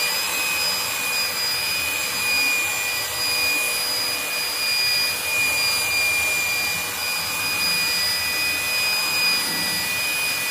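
Electric belt sander running steadily with a constant high whine, sanding the top face of a round slice of log.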